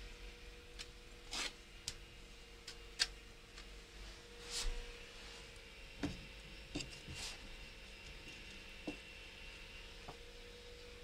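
Faint scrapes of a blade spreading brick adhesive from a plastic tub onto a brick, with scattered soft knocks and clicks as the brick and tools are handled.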